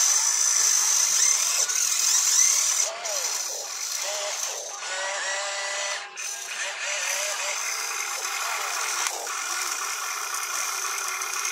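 Electric motors and gearing of a radio-controlled excavator whining as it digs and swings its arm. The whine breaks off briefly about three seconds in and again about six seconds in.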